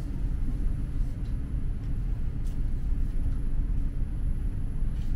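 Steady low rumble of a tram running along its line, heard from inside the passenger car.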